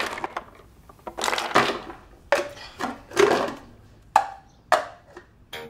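A run of knocks, scrapes and clatters from kitchen handling: a wooden drawer pulled open, then a plastic sippy cup and its lid knocked about, with two sharp clicks near the end.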